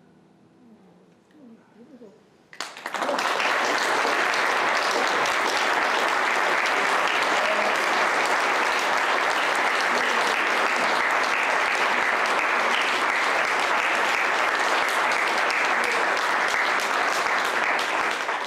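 The last harp notes fade out, then about two and a half seconds in an audience bursts into steady applause that keeps going.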